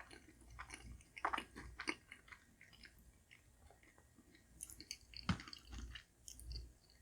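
A person chewing soft pan-fried turnip cake close to the microphone: quiet wet chewing with scattered mouth clicks and smacks, the sharpest a click about five seconds in.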